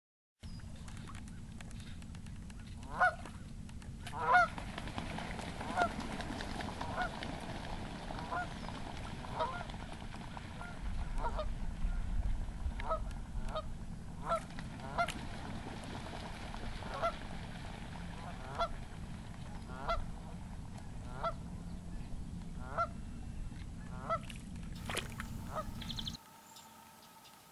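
Geese honking over and over, about one call a second at uneven intervals, over a steady low rumble. Near the end the sound cuts off abruptly to something much quieter.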